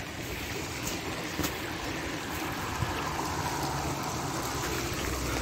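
Muddy floodwater from a flash flood rushing along a dry desert wash, a steady rush of water with no break.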